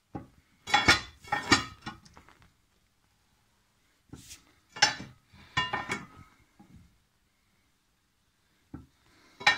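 Tools striking the iron bottom end of a stripped Chevy 235 straight-six: sharp metal-on-metal knocks and clinks with a short ring. They come in two bunches, about a second in and again from about four to six seconds in, as parts of the seized engine are forced apart.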